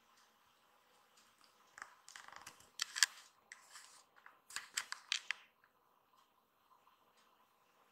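Kittens play-fighting on a fabric sofa cushion: scratchy rustling and scuffing of claws and paws on the fabric, in two short flurries, one about two seconds in and one about halfway through.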